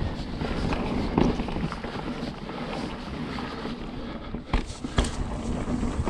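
Mountain bike rolling fast down a dirt trail: steady tyre noise and bike rattle with wind on the microphone. Two sharp knocks come half a second apart, about four and a half seconds in.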